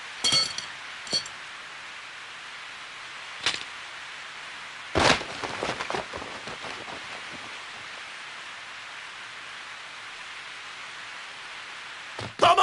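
Heavy rain falling steadily on stone paving, with a sword clattering in two short ringing metallic clinks in the first second and a half. A sharp hit comes at about three and a half seconds and a loud sword-stroke effect about five seconds in.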